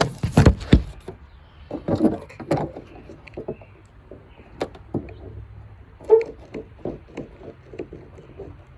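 Handling noise close to the microphone: irregular knocks and clicks, a cluster of loud ones in the first second and more scattered through the rest, over a faint low hum.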